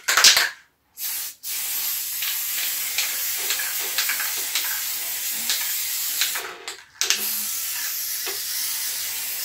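Aerosol can of gold spray paint hissing: two short spurts, then a long steady spray of about five seconds, a brief break about seven seconds in, and another long spray.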